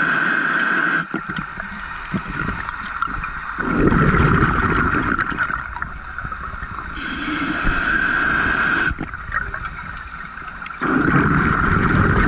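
Scuba diver breathing through a regulator underwater: a hissing inhale through the demand valve, then a burst of exhaled bubbles gurgling. The inhale-and-exhale cycle comes about twice.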